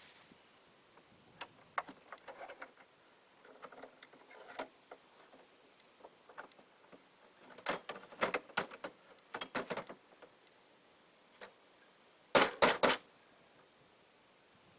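Clusters of sharp knocks and clatters, several quick strikes each, a few seconds apart; the loudest cluster comes near the end.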